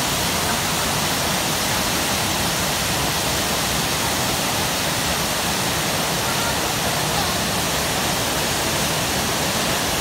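Tortum Waterfall pouring down a high rock face: a loud, steady rush of falling water.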